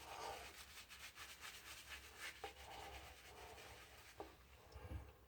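Faint rubbing and swishing of a synthetic-knot shaving brush working a dab of shaving gel into a lather, with light scratchy strokes.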